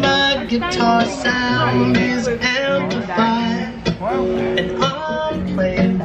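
Guitar music playing, plucked notes over sustained low bass notes.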